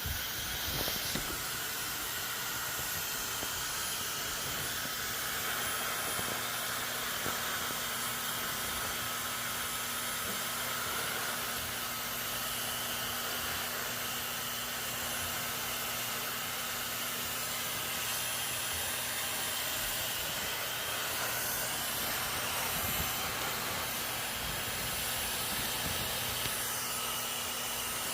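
Hair dryer running steadily: an even rushing hiss of blown air over a low motor hum.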